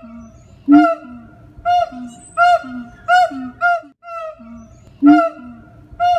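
Siamang calling with its throat sac inflated: a series of loud, short hoots, roughly one a second, each arching briefly up and down in pitch and followed by a shorter, lower note.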